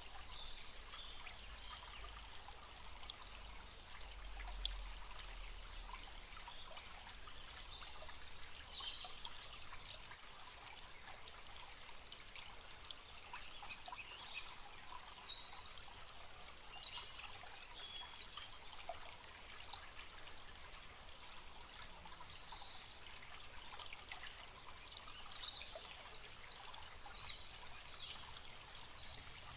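Small forest stream trickling and babbling steadily, with short high bird chirps now and then.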